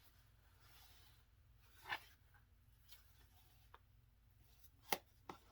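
Near silence with a few faint rustles and taps from handling a taped cardboard box, the sharpest a short click about five seconds in.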